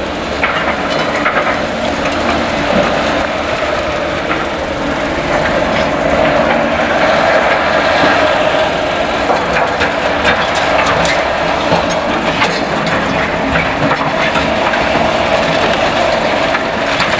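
Caterpillar excavator working on demolition debris: the engine and hydraulics run with a steady whine, under frequent irregular clanks, scrapes and crunches of rubble and steel.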